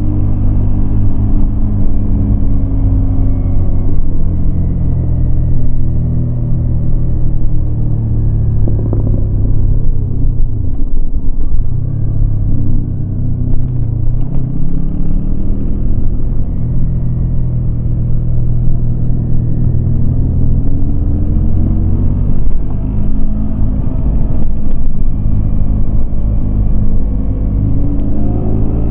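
Yamaha MT-25's parallel-twin engine running under way, its pitch falling and rising several times as the rider opens and closes the throttle, over a steady low rumble.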